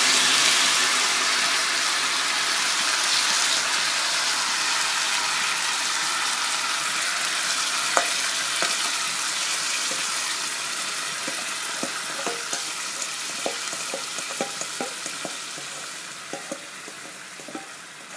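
Rice and sugar mixture sizzling as it lands in hot vegetable ghee, the sizzle fading gradually. From midway on, a spatula knocks and scrapes against the steel bowl in short clicks as the last rice is scraped out.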